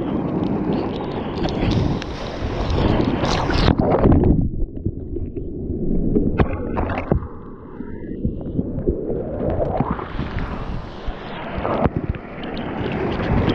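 Whitewater of a broken wave rushing and splashing around a bodyboard, heard right at the water surface. About four seconds in the sound turns muffled and quieter for several seconds, with a few sharp knocks, then the full rush returns.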